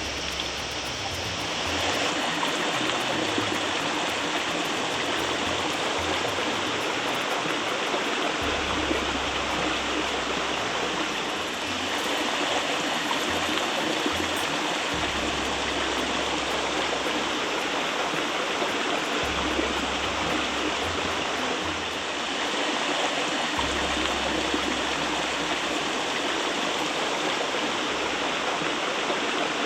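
Steady rush of flowing water, like a stream or small waterfall, keeping an even level throughout.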